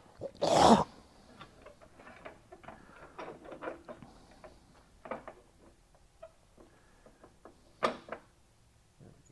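Scattered light clicks and taps of small tools being handled at a stopped wood lathe, with a short louder noise about half a second in and a sharper click near the end.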